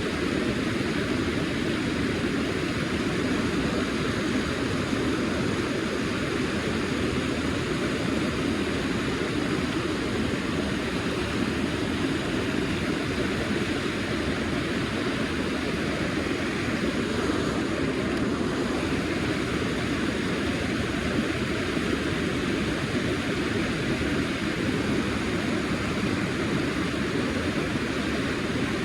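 Steady rushing of river water flowing past, an even noise with no breaks.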